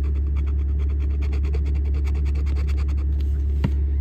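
A coin scraping the latex coating off a scratch-off lottery ticket in quick, even strokes, stopping about three seconds in. A single sharp click follows near the end, over a steady low hum.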